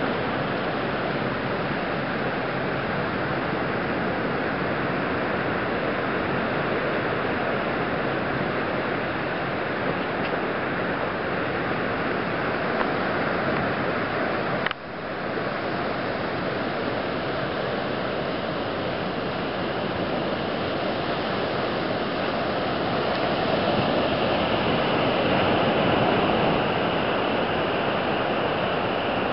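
Ocean surf washing onto a beach, a steady rush of noise mixed with wind on the microphone, with a brief dropout about halfway through.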